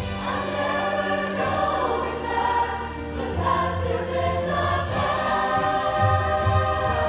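A school choir singing in parts, many voices holding notes together and moving to new chords every second or two.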